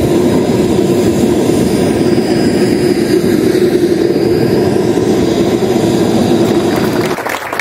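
Aircraft engine running nearby: a loud steady drone with a faint high whine above it, cutting off abruptly about seven seconds in.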